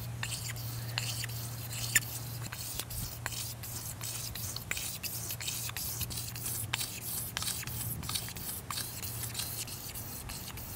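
A bare utility-knife blade scraping old varnish off a wooden boat's transom in quick back-and-forth strokes, each stroke a short, sharp scratch, several a second.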